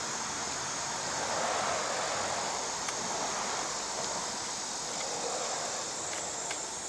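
Steady chirring of insects such as crickets, with a couple of faint clicks.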